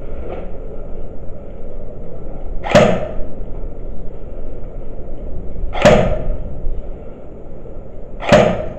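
Three single shots from an airsoft pistol, each a sharp pop with a short tail, about three seconds in, about six seconds in and near the end.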